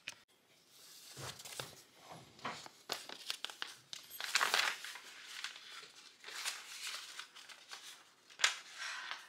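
Paper rustling and crinkling as an IKEA assembly instruction booklet is handled and its pages flipped, in irregular rustles, the loudest about halfway through and another sharp one near the end.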